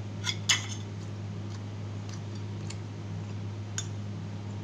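Eating sounds from a person chewing fried chicken and rice: a few sharp clicks and taps, the loudest about half a second in and another near the end, over a steady low hum.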